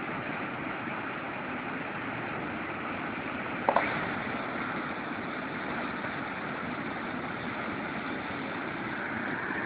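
Steady rushing roar of a waterfall, with a brief sharp sound cutting through it about four seconds in.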